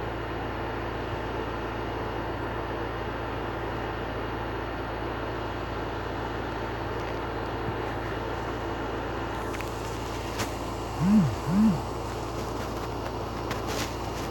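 Steady background hiss with a low electrical hum, broken about eleven seconds in by two short, low tones in quick succession that each rise and fall in pitch.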